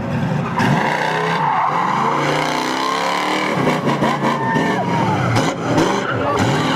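Chevrolet Corvette C3's V8 engine revving up and down repeatedly while the rear tyres spin and squeal in a smoky slide.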